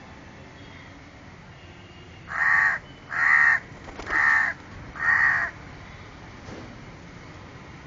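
House crow cawing four times in quick succession, each caw a harsh call of about half a second, starting about two seconds in.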